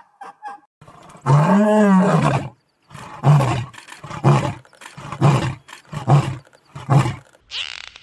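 Male lion roaring: one long, loud roar followed by a run of five shorter roars, about one a second. Near the end, high gliding dolphin whistles begin.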